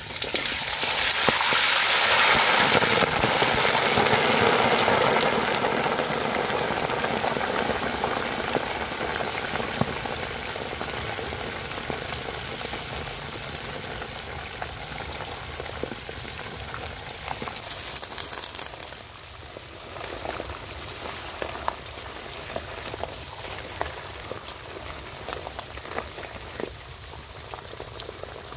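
Hot oil in a steel wok bursting into a loud sizzle as a basket of whole balut eggs drops in, then frying on while slowly dying down, with scattered pops and crackles.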